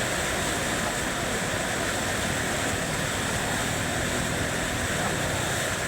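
Steady rush of a flooded river's fast-flowing water.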